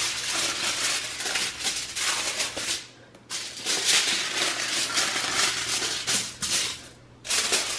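Sheets of aluminium foil crinkling and rustling as they are folded and smoothed flat by hand, in spells broken by two brief pauses, about three seconds in and near the end.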